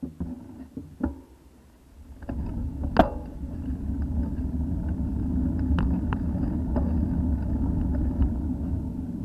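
Low rumble of wind and road noise on a bicycle-mounted camera as the bike rolls along, setting in about two seconds in and holding steady. Sharp knocks from the bike and camera mount over bumps cut through it, the loudest about three seconds in.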